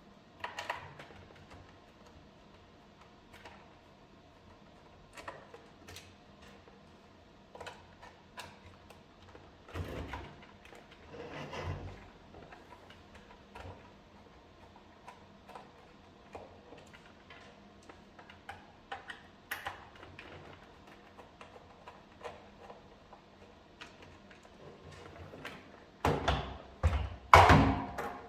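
Scattered small clicks and knocks of plastic parts and tools being handled while a cordless stick vacuum is taken apart, with a few louder clattering knocks near the end.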